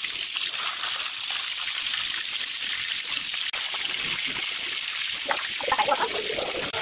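Fish steaks sizzling steadily in hot oil in a steel kadai, a continuous crackling hiss, with a single sharp click about halfway through.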